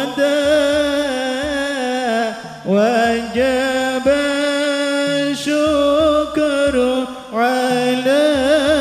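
A singing voice chanting a slow, ornamented devotional melody in long phrases, its held notes wavering, over low sustained accompaniment.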